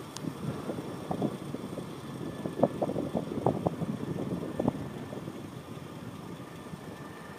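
Bicycle rolling along an asphalt road with wind rumbling on the microphone, and a short run of rattling knocks a few seconds in as it goes over rough, patched pavement.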